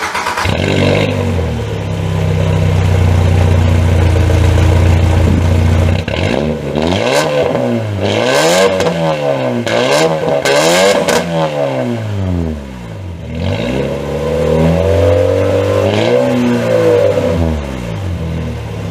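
Skoda Felicia pickup's engine heard at the tailpipe of a homemade exhaust with no rear muffler. It catches at the start and idles, is revved up and down several times, then is held at a raised speed before dropping back. Too loud for a daily driver.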